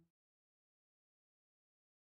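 Complete digital silence: the closing song has faded out and the sound track is empty.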